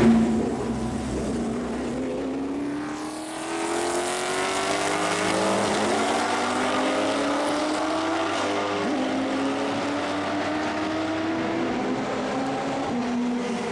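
Ford V8 race car engine accelerating at full throttle, its pitch climbing in several rising sweeps as it shifts up through the gears.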